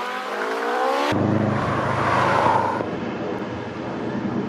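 Road traffic: a vehicle engine note dips and then climbs in pitch. After an abrupt change about a second in, a vehicle passes close by, its rushing tyre and engine noise swelling to a peak and then dropping to steady traffic noise.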